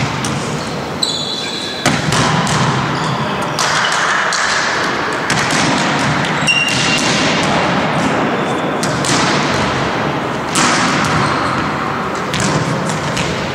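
Volleyballs being struck and bouncing on a wooden sports-hall floor, irregular sharp smacks and thuds echoing in the large hall, with a few short high squeaks and a background of voices.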